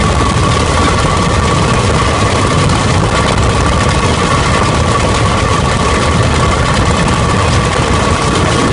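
Motorised rail trolley (draisine, an Argentine "zorra") travelling along the track: its engine runs steadily under a dense rumble of running noise, with a steady high whine over it.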